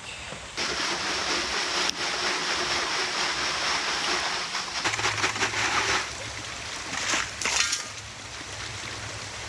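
Creek water rushing and splashing close by, loud for the first six seconds and then quieter, with a few short louder splashes.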